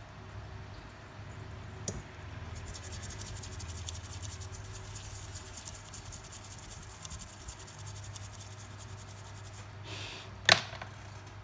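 Steady low hum with fast, faint scratching ticks, and one sharp click about ten and a half seconds in.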